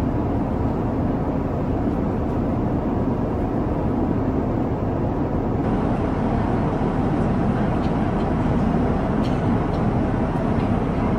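Steady airliner cabin noise: an even, low rushing drone with no break. A few faint ticks sound in the second half.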